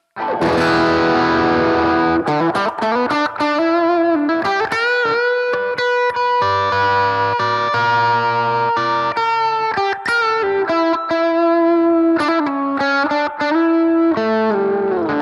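Electric guitar played through a BOSS GT-1000 amp modeller and Two Notes Cab M cab simulator. It plays a melodic lead line of held notes with string bends and vibrato, broken up by quicker picked runs.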